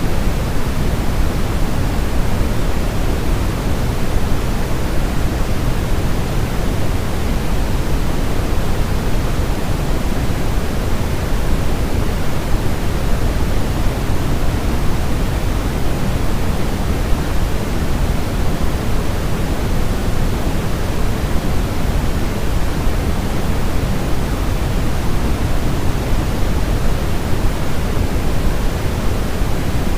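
Steady, unchanging white noise: a full, even hiss weighted toward the low end, with no breaks or changes.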